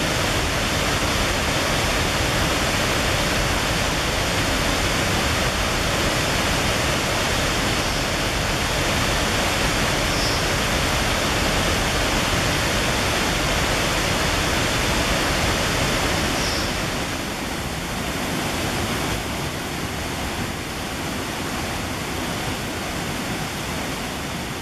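Steady rush of water from a fast-flowing mountain river below a waterfall, a little quieter from about two-thirds of the way in.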